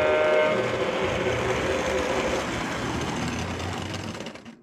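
Prewar American Flyer O gauge electric toy train running on metal track, a steady rumbling clatter of motor and wheels. A whistle tone stops about half a second in. The running noise slowly fades, then cuts off abruptly near the end.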